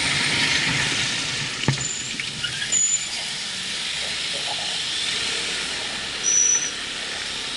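Steady wind rush and road noise from a motorcycle riding slowly in dense traffic. A click comes about two seconds in, and short, thin, high-pitched squeaks come three times.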